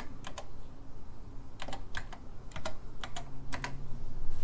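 Keystrokes on a TRS-80 Model I keyboard: about ten separate key clicks, typing a date at the LDOS boot prompt.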